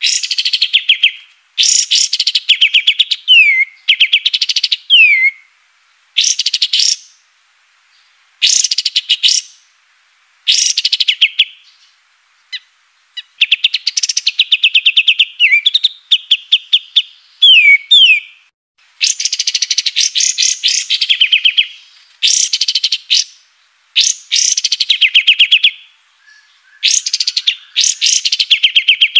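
Kapas tembak songbird singing in repeated loud phrases, each a second or two of very rapid chattering trills. Many phrases end in a quick falling whistle, with brief pauses between phrases.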